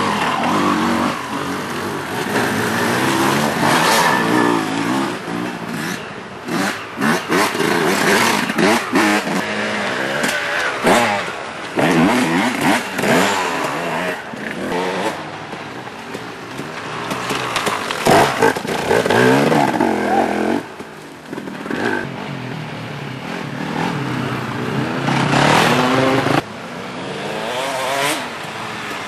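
Off-road dirt bike engines revving hard, the engine note rising and falling again and again as riders blip the throttle over rough ground, with several bikes heard in turn. The sound breaks off abruptly twice between passes.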